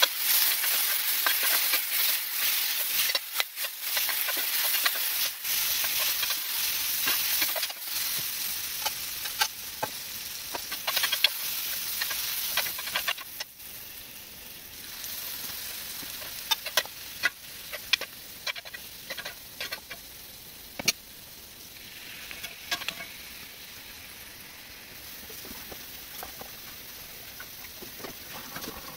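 Onions, tomatoes and green peppers sizzling in a hot cast iron skillet while a metal spoon stirs them, with frequent clicks and scrapes of the spoon on the iron. About halfway through, the sizzle drops to a quieter, steady frying, with a few sharp clicks.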